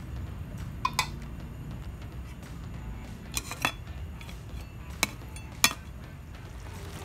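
Metal spatula stirring food in a cooking pan, clinking sharply against the pan six times in pairs: about a second in, around three and a half seconds, and twice near five seconds, over a steady low rumble.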